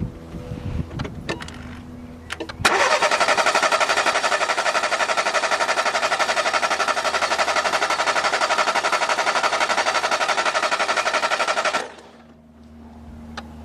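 Car engine cranked over on its starter motor for a compression test on one cylinder, spinning with an even, rapid pulsing. The cranking starts abruptly a little over two seconds in and stops suddenly near the end, after a few small clicks.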